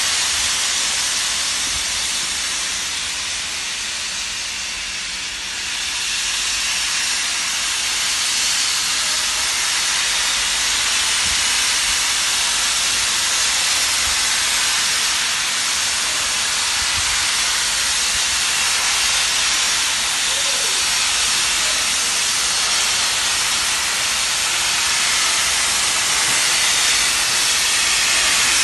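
LMS Stanier Jubilee class 4-6-0 steam locomotive 45596 'Bahamas' hissing loudly and steadily with escaping steam, dipping slightly a few seconds in before settling back to a steady level.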